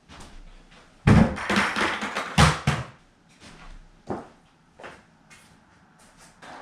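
A plastic five-gallon bucket set down on a wooden floor, a rough run of knocks over about two seconds, then a few footsteps.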